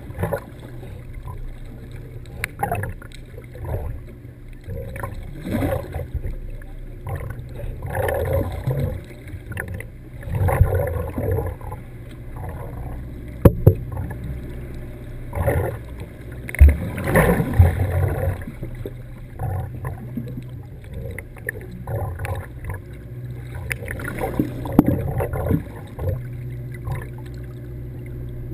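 Muffled underwater sound just below the sea surface: water sloshing and splashing in irregular surges, with a few sharp louder knocks, over a steady low hum.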